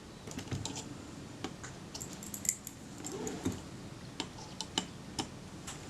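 Small screwdriver turning a tiny screw home into the rangefinder of a Kodak Retina IIIS camera, giving faint, irregular metallic clicks and ticks.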